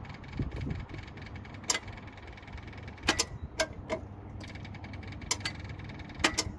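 Kaeser M20 diesel-driven portable screw compressor running at idle, a steady low rumble with a faint rapid ticking. Several sharp clicks come through it.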